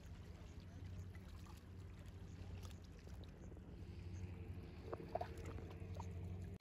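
Faint steady low hum of a distant boat engine across the water, with a light wash of water. A few faint clicks come about five seconds in.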